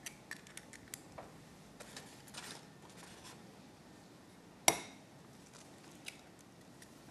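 An egg being cracked on the rim of a glass bowl: one sharp tap with a short ring about two thirds of the way through, among faint small clicks of shell and glassware being handled.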